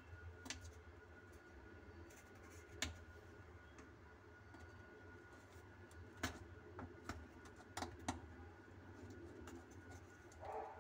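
Sparse sharp clicks and taps, about five scattered through, from an adjustable wrench working the plastic slip nut of a sink drain trap.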